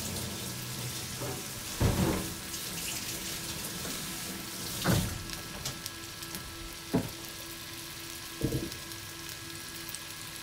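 Cubes of meat searing in hot olive oil in an enamelled cast-iron pot, sizzling steadily, with a few short knocks along the way.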